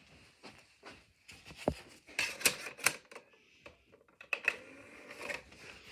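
Irregular sharp clicks and knocks, several close together about two to three seconds in, as a DVD is handled and loaded into a DVD player.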